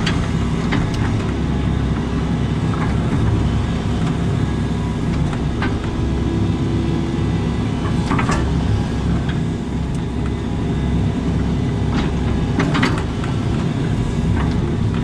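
Excavator diesel engine running steadily with the hydraulics working, heard from inside the cab, with a few short knocks and clanks scattered through it.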